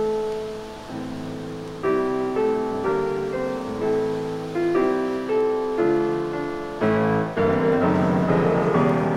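Piano music: notes and chords struck one after another, each fading before the next, the playing growing fuller near the end.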